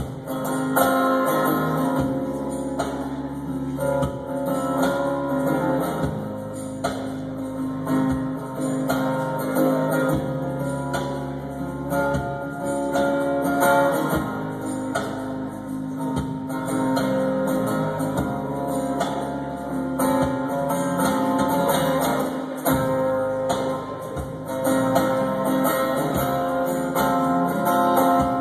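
Instrumental break of an indie-folk song: strummed acoustic guitar with other instruments, no vocals.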